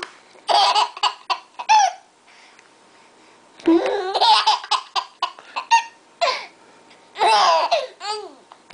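A baby laughing in several separate bursts of high-pitched giggles and belly laughs, with a pause of about a second and a half after the second burst.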